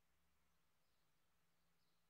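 Near silence: faint outdoor ambience, with a few very faint, brief high chirps.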